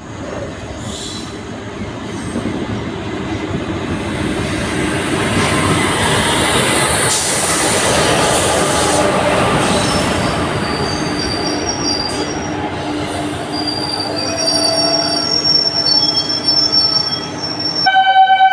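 Train rolling along the rails, its rushing noise building. In the second half the wheels give off thin, high-pitched squeals. Just before the end a steady horn tone starts suddenly.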